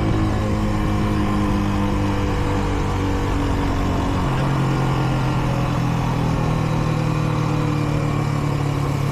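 Kreidler Dice CR 125's single-cylinder four-stroke engine running at steady speed on the road; about four seconds in its note steps up to a higher pitch and holds there. The bike is still in its running-in period.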